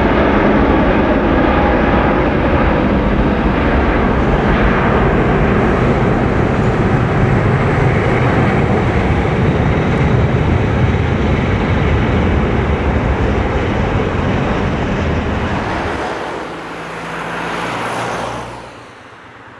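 Airbus A380's four jet engines at takeoff thrust: a loud, steady rumble as it rotates, lifts off and climbs away. Near the end the sound falls away.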